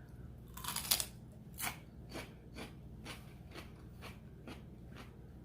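Close-up chewing of crunchy raw vegetables: sharp crunches at about two a second, the loudest cluster about a second in.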